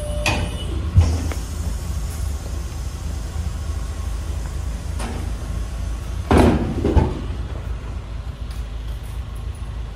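Steady low rumble with a sharp knock about a second in and a louder clatter around six to seven seconds, from loading work in the back of a box truck: a hand truck being handled on the wooden floor next to the pallet jack and steel dock plate.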